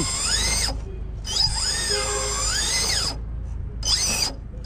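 RC rock crawler's electric motor and drivetrain whining under throttle as it climbs rock, the pitch rising and falling as the throttle is worked. The whine cuts out about a second in and twice more later as the throttle is let off.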